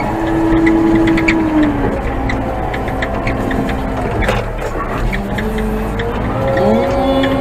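Old Manitou telehandler's diesel engine running, its pitch dropping about two seconds in and rising again near the end. Scattered clicks and knocks throughout, and a brief rushing noise about four seconds in.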